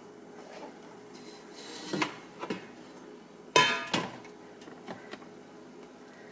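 Power AirFryer XL basket drawer being pulled out and set down on a stone counter: a few light knocks, then a louder metallic clatter about three and a half seconds in, followed by another knock.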